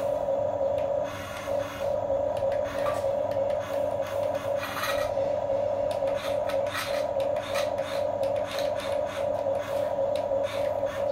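Huina 1550 RC excavator's electric motors running with a pulsing whine as it works its arm, with the bucket scraping through sand and grit.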